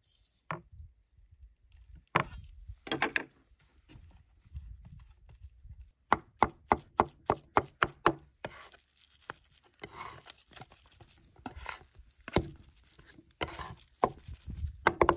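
Cleaver chopping peeled garlic cloves on a wooden cutting board: sharp knocks of the blade on the board, scattered at first, then a quick run of about five chops a second in the middle.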